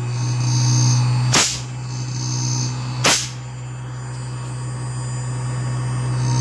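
Inverter AC compressor humming steadily at high speed, driven by a repaired outdoor PCB after its IGBT gate-driver IC was replaced, with sharp snaps twice.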